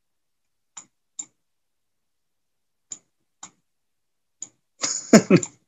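Computer mouse button clicking, five single clicks spaced unevenly over about four seconds, while letters are handwritten with the mouse. Near the end comes a louder, short vocal sound.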